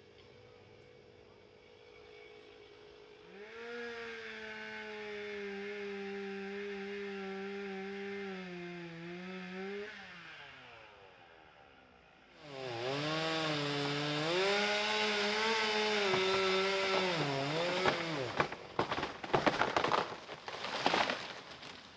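A gas chainsaw runs, its pitch dipping slightly, then winds down about ten seconds in. It starts again louder a couple of seconds later, its pitch repeatedly sagging and recovering as it bogs in the cut. Near the end come a series of loud sharp cracks and crashes as the tree splits and falls: the trunk barber-chaired, and the cutter finds its inside rotten.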